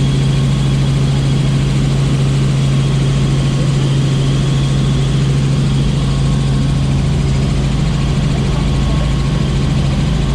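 Helicopter in flight heard from inside the passenger cabin: a loud, steady drone of engine and rotor with a strong low hum, unchanging throughout.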